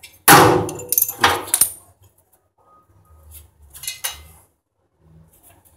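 Metal hand tools clattering: a loud clank with ringing just after the start, a second clatter about a second later, and a softer knock around four seconds in.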